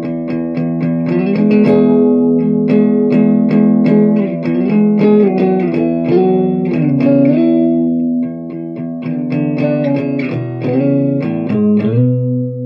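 Electric guitar played through a Thomas Winfield "The Winfield" amplifier and a Marshall 2x12 cabinet: quickly repeated picked notes over a ringing held note, with several sliding or bent notes.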